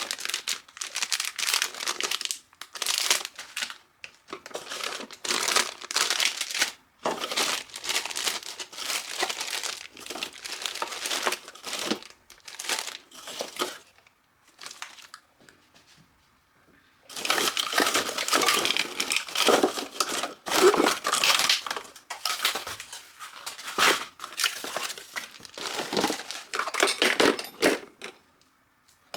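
Plastic packaging being handled and pulled off during unboxing, crinkling and rustling in irregular bursts, with a pause of a few seconds about halfway through.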